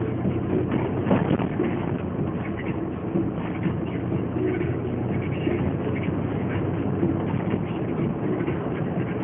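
Alfa Romeo 145 1.6 driving along a city street, heard from inside the cabin: its boxer engine running steadily under the rumble of the tyres on the road surface.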